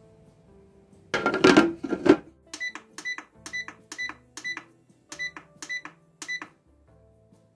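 Portable sauna steamer's digital control panel beeping as its buttons are pressed, about ten quick electronic beeps a little under half a second apart. About a second in, a loud burst of handling noise comes before them.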